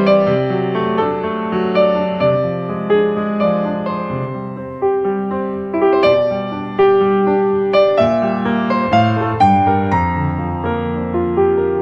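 Background piano music: single notes and chords struck about once a second and left to fade.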